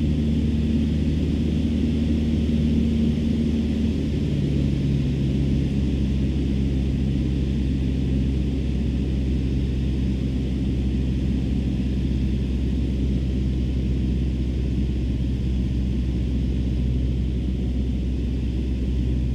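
Cessna 150's four-cylinder Continental O-200 engine droning steadily in flight, heard inside the cabin with airflow hiss. About four seconds in its pitch steps down as the throttle is eased back.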